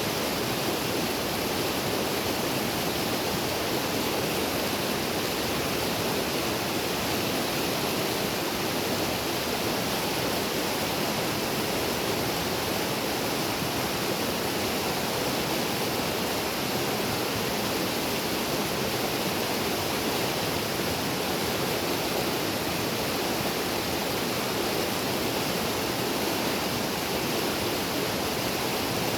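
Small river rushing steadily over rocks, a loud even roar of flowing water that doesn't change.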